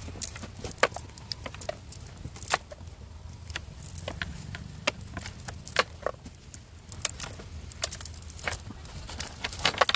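A cast net being lowered into a pile on a bamboo raft: irregular sharp clicks and clinks from its sinkers knocking together and against the bamboo, over a low steady rumble.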